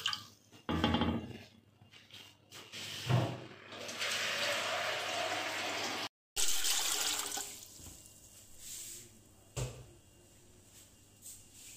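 Water poured from a jug into a metal pot, splashing and filling in a few spells over the first half, then dying away, with a brief knock later.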